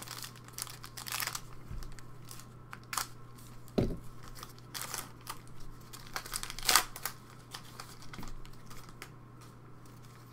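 Football trading cards and their pack wrapper handled in gloved hands: irregular rustling, crinkling and soft card clicks and slaps, the loudest about two-thirds of the way through.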